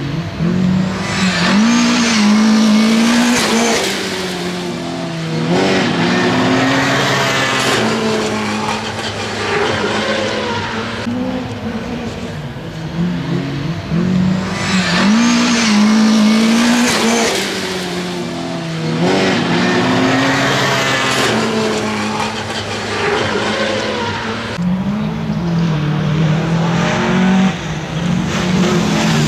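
Rallycross race car engines running hard and revving up through the gears, the pitch climbing and dropping back at each shift, in repeated loud waves as cars come past.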